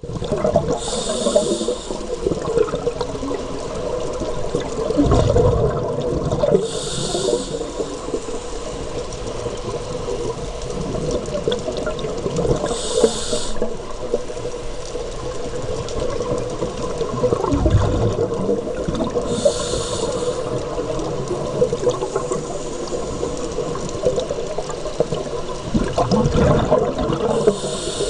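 Underwater sound of scuba breathing: a short hiss from the regulator about every six seconds, five times, with low bubbling exhalations between, over a steady underwater murmur.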